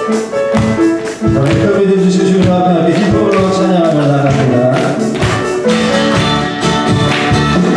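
Worship band playing an instrumental passage of a praise song: sustained pitched chords over regular percussive strikes.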